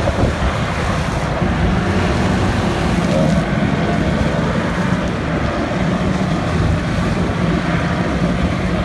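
Offshore racing powerboats' engines running at speed, heard as a steady low drone from about a second and a half in, under wind buffeting the microphone and the wash of rough water.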